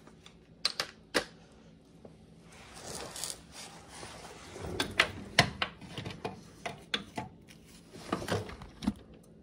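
Hand socket ratchet clicking in short irregular spells, with sharp knocks and clinks of metal tools, while working loose an engine motor mount bolt.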